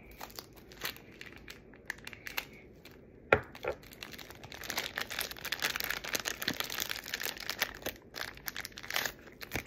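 Clear plastic bag crinkling and rustling as it is handled, the crackling densest in the second half, with one sharp snap about three seconds in.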